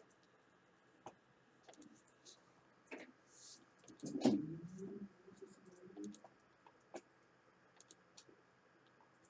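Computer mouse clicks, scattered and irregular, as interface panels are opened and collapsed one after another. About four seconds in there is a louder knock, followed by a brief low murmur.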